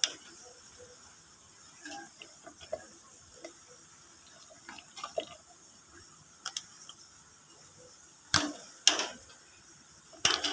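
A cat crunching dry kibble from a plastic bowl: small irregular crunches and clicks. There are a few louder sharp knocks, twice about eight to nine seconds in and again near the end.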